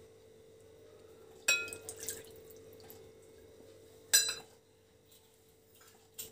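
Water poured from a small bowl into a glass mixing bowl, with two clinks against the glass that ring briefly, about a second and a half in and again about four seconds in.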